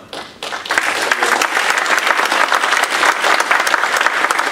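Audience applause, many people clapping. It starts about half a second in and quickly swells to a steady level.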